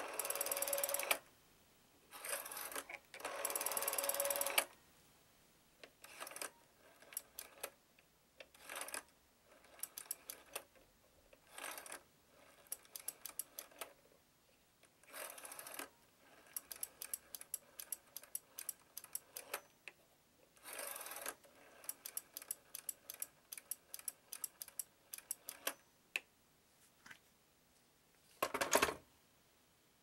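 Rotary telephone dial being wound round by a finger and spinning back again and again, its pulse contacts clicking in runs of quick clicks, one run per digit dialed. Near the end comes one louder clatter as the handset is set back on its cradle.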